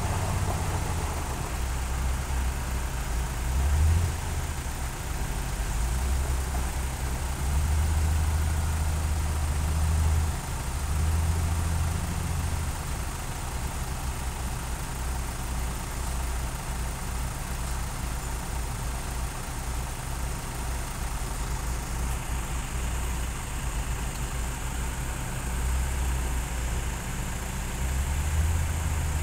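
Diesel engine of a Sakai SV526D vibratory road roller running with a low, steady rumble at idle. It swells louder for a few seconds now and then.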